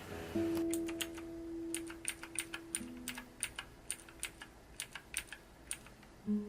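Typing on a MAXTILL TRON G400K tenkeyless mechanical keyboard: irregular key clicks starting about half a second in, over background guitar music.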